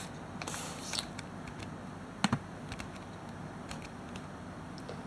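Sparse clicks from a computer keyboard and mouse, the loudest a little over two seconds in, over a faint steady hiss.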